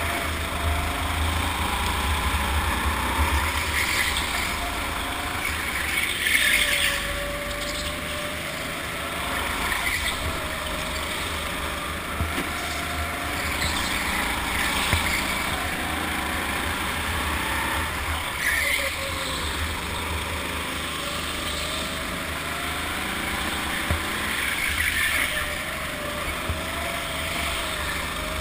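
Go-kart motor running at speed, its pitch rising and falling as the kart speeds up and slows through the corners, with heavy low wind rumble on the microphone. Brief louder noisy bursts come every few seconds.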